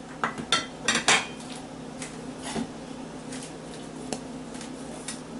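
A metal spoon clinking and tapping against a bowl while ingredients are added: a quick cluster of knocks in the first second or so, then a few fainter, scattered taps.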